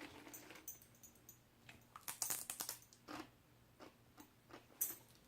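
Faint, irregular crunching of a puffed brown-rice chip dog treat being bitten and chewed, a cluster of crisp crackles about two seconds in and a few single crunches after.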